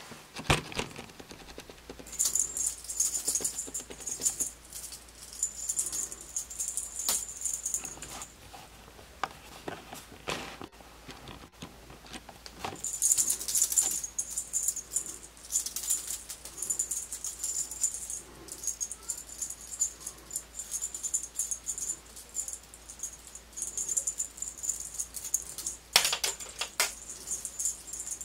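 A small jingle bell shaken in irregular bursts of a few seconds, with a few soft knocks between them.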